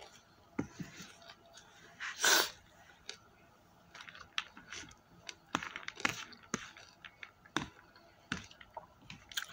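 Eating by hand from a plastic food container: small clicks and crackles of fingers and food against the plastic, with chewing. About two seconds in there is one short, loud, breathy hiss.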